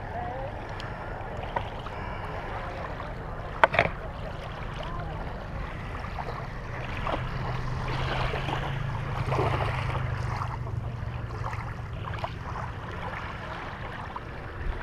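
Wind on the microphone and lapping water, with a hooked pike splashing at the surface near the middle as it is played in close to the shore. A single sharp knock comes about four seconds in.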